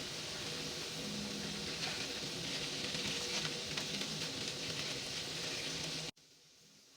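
Food sizzling as it fries in hot oil in a pan, a steady hiss with small pops over a low steady hum. It cuts off abruptly about six seconds in.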